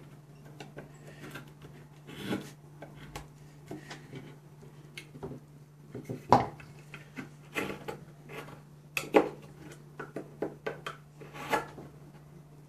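Carbon-steel Mora Companion knife cutting and scraping into a pine block: irregular crisp cuts and scrapes of the blade in the wood. The sharpest strokes come about six and nine seconds in.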